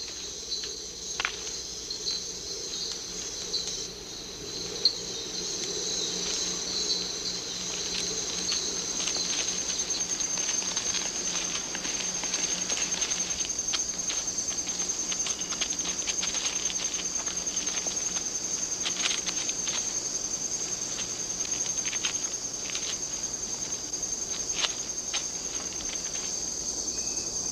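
Steady, high-pitched chorus of rainforest night insects, a continuous fast-pulsing trill, with scattered faint clicks and rustles through the middle of the stretch.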